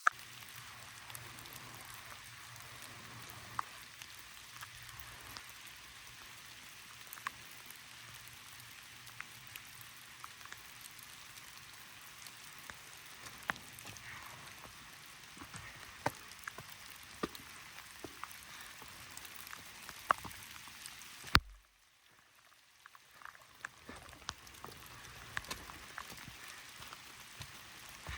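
Steady rain falling, with many separate drops ticking out above the hiss. About three-quarters of the way in, the sound cuts out abruptly, and the rain fades back in over the next couple of seconds.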